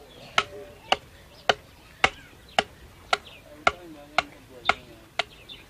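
Metal carving blade chopping into a wooden drum shell as it is hollowed out: sharp, even strokes, about two a second.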